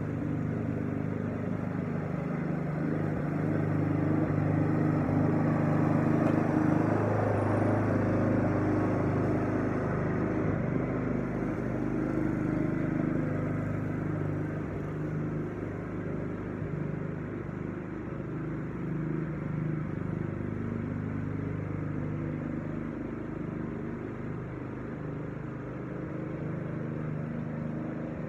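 Walk-behind gas lawn mower engine running steadily under cutting load. It grows louder a few seconds in as the mower comes close, then eases off as it moves away across the lawn.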